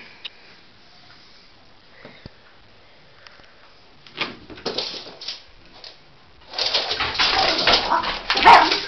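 Norfolk terrier whimpering and grumbling with excitement, mixed with scuffling and handling noise. The sound grows suddenly loud about two-thirds of the way in and is loudest near the end.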